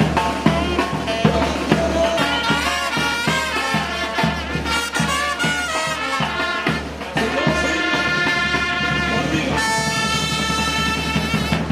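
Panamanian murga band playing: trumpets and trombones over a pounding drum beat, with the horns holding a long chord near the end.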